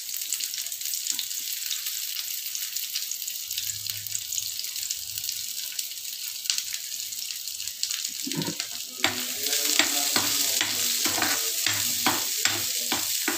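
Chopped onions sizzling in hot oil in a kadai, a steady frying hiss. About eight seconds in, a steel ladle starts stirring them, scraping and clinking against the pan.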